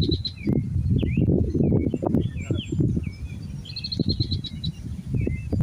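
Small birds singing: a rapid high trill near the start and again about four seconds in, with scattered short chirps between, over a steady low rumbling noise.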